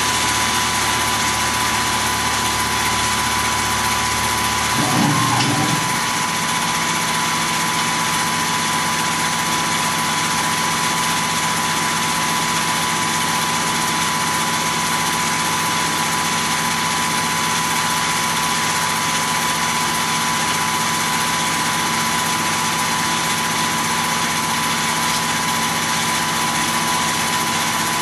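Tormach PCNC 1100 CNC mill running its Duality lathe attachment during an automatic facing cycle on a brass part: a steady machine hiss with a constant high whine. About five seconds in there is a brief louder burst and the low hum changes, then it runs steadily again.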